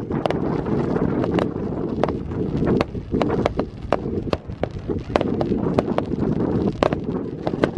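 Fireworks going off: irregular sharp bangs and crackles, a few a second, over a continuous low rumble.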